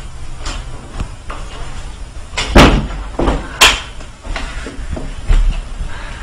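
Bangs and knocks on a door: several sharp knocks, the two loudest about two and a half and three and a half seconds in, over a steady low hum.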